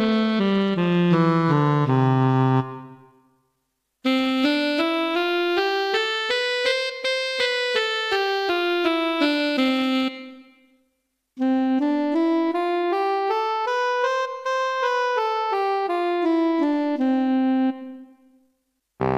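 Yamaha PSS-F30 portable keyboard sounding its preset voices, each played as a quick stepwise scale. A falling run ends about two and a half seconds in. After a short silence, two more scales follow, each climbing and then coming back down and each about six seconds long, with a pause between them. A different voice starts right at the end.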